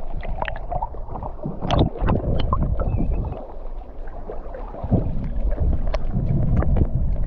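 Rough, surging sea water sloshing and rumbling around an underwater camera, with scattered sharp clicks and knocks.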